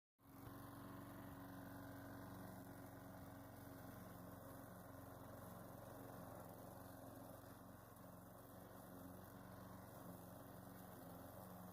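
Petrol push lawn mower engine running steadily, heard faintly.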